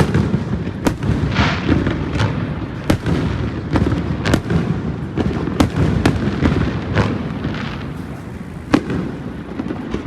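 Fireworks going off: a dozen or so sharp bangs at irregular intervals with crackling between them, over a continuous low rumble.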